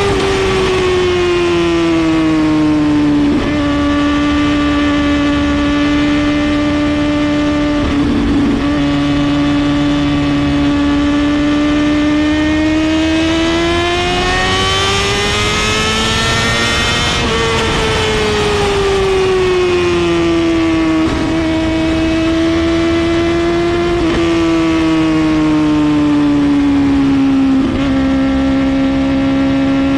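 Suzuki GSX-R750 inline-four running through a full Brocks exhaust at high revs. Its steady, high engine note slowly rises and falls in pitch, broken by about five brief dips that sound like gear changes or quick throttle lifts.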